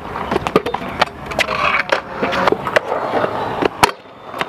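Stunt scooter on skatepark concrete: wheels rolling, with a series of sharp knocks and clacks as the deck and wheels hit the ground. The sharpest and loudest comes a little before four seconds in.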